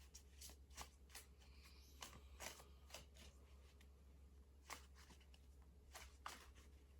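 Faint, irregular clicks and taps of tarot cards being handled on a table, over a low steady hum.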